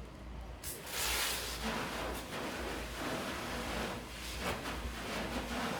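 A loud hissing rush of noise that sets in suddenly about a second in, then swells and eases in waves.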